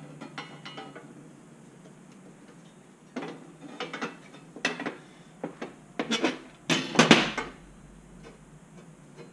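Steel bracket plates clinking and knocking against each other and the steel bench as they are handled and fitted together. The clicks come in clusters, busier from about three seconds in, with the loudest clatter about seven seconds in.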